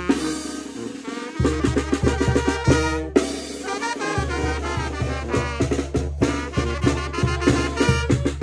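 Mexican brass band (banda de viento) playing, with its trombone damaged: brass instruments over a steady snare and bass-drum beat. The low bass line drops out twice, briefly.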